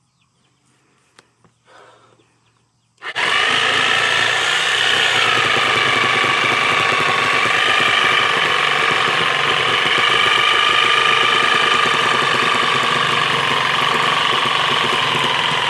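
Electric power tool starting up about three seconds in and running steadily as it cuts into a steel-belted 18-wheeler tire.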